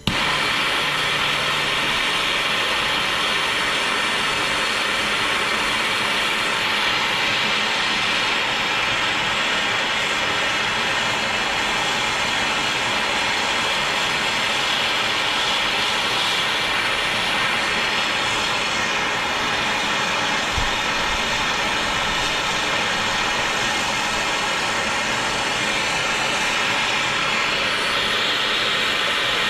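Handheld gas torch flame hissing steadily, heating a frame's bearing bore to free a stuck bearing.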